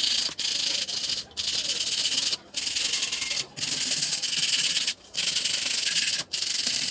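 Rough rubbing noise in repeated strokes of about a second each, with short breaks between strokes.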